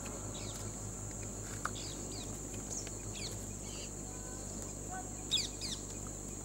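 Outdoor forest ambience: a steady high-pitched insect drone with scattered short bird chirps, and a louder run of bird calls about five seconds in.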